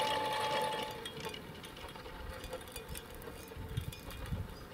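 12-volt, 240-watt electric winch motor and gearbox whining steadily as it pays out line, then cutting off about a second in. Faint light ticks and a few low thumps follow.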